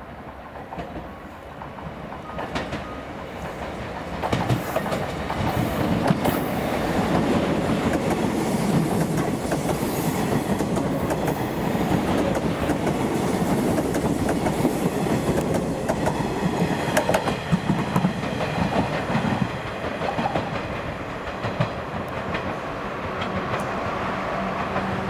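A JR West 381 series six-car electric limited express train running through a station without stopping. It grows louder over the first few seconds as it approaches, then the cars go by with wheels clattering in repeated clicks over the rail joints, and the sound eases off somewhat near the end as the train recedes.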